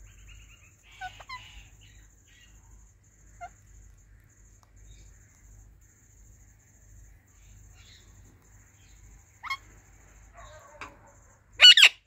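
Ringneck parakeets giving a few faint short chirps, then a single sharper call, and near the end a loud burst of shrill calls.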